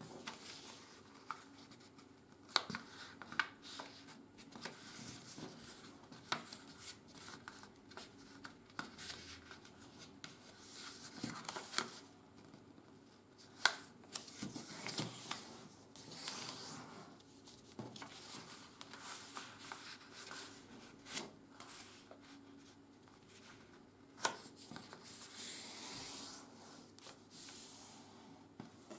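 A sheet of office paper being folded by hand on a wooden tabletop: soft rustling and rubbing as it is handled and the folds are pressed flat, with a few sharp ticks.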